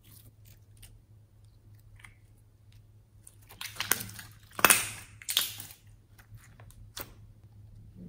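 Slime being squished and kneaded by hand as putty slime is worked into store-bought slime. It makes scattered sticky clicks, then a run of loud pops and crackles a little past the middle.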